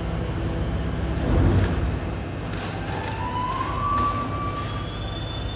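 BYD electric garbage truck working its compactor: a steady low hum, a heavy thud about a second and a half in, then a rising whine from about three seconds in that levels off and fades.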